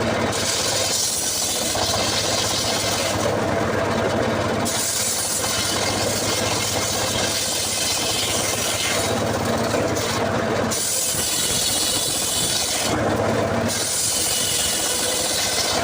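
Engine-powered saw cutting wood. The engine runs steadily under load with a high hissing cut that drops out three times for about a second each, as the blade leaves and re-enters the wood.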